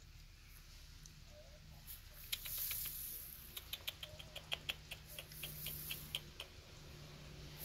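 Brush-tailed porcupine chewing food: a quick run of sharp, crunching clicks, several a second, after a brief rustle.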